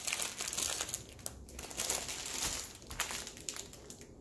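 Small plastic bags of square diamond-painting drills crinkling as they are sorted through by hand, busiest in the first two seconds and quieter after.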